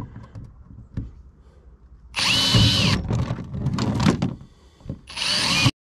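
Electric drill drilling, run in two bursts with its motor whining up to speed and back down; the second burst is shorter.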